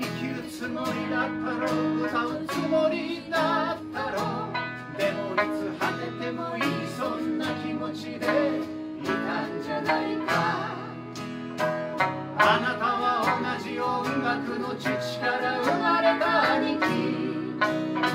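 Live acoustic folk song: a man singing lead over a strummed acoustic guitar, a sanshin plucking along, and an accordion holding chords while a woman sings harmony.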